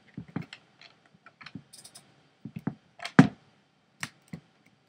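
A Hoover Handivac handheld vacuum being handled with its motor off: irregular clicks and knocks of its parts being moved. One sharp knock about three seconds in is the loudest.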